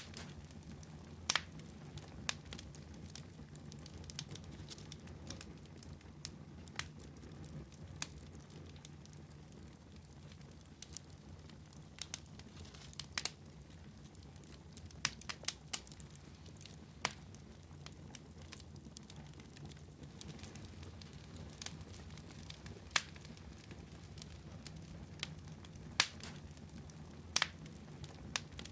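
Wood fire burning in a fireplace: a low steady rumble under irregular sharp crackles and pops, about twenty scattered through, some in quick clusters.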